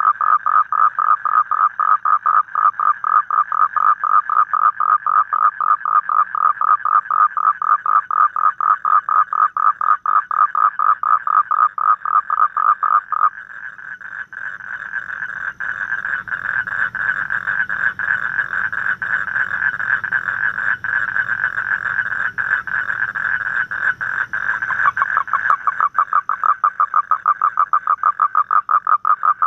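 Asian common toads calling: a loud, rapid pulsed trill of about six pulses a second. About halfway through it switches abruptly to a denser, more continuous trill, and it turns back to distinct pulses near the end.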